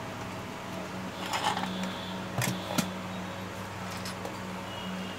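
Quiet workbench room tone: a steady low hum, with a few faint clicks in the middle.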